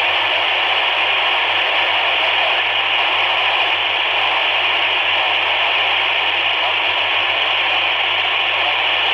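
Steady FM receiver hiss from a TYT TH-UV8000D handheld radio tuned to the AO91 satellite downlink, with no voice coming through.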